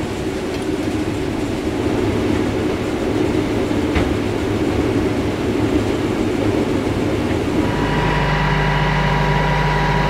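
Combine running as it harvests corn: a steady, dense rumble of engine and threshing machinery, with a single click about four seconds in. Near the end it gives way to a steadier engine hum at a constant pitch.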